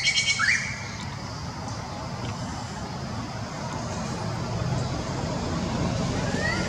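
Steady low outdoor rumble that slowly grows louder, with a few short rising chirps in the first half-second and again near the end.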